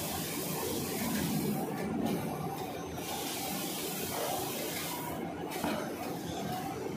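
XY AI 500 automatic band saw cutting machine for JRT tissue rolls running, with a steady hissing rush over a running rumble as the machine works through its cutting cycle. The hiss drops off briefly twice, about two and five seconds in.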